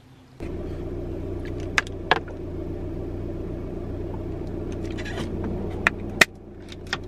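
Steady low hum of a car idling, heard from inside the cabin, with four sharp clicks; the hum drops in level after the loudest click, about six seconds in.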